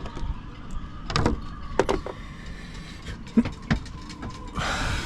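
Handling noises while marking out a panel template: a scatter of sharp knocks and clicks, then a short scratchy rush near the end, over a steady faint tone.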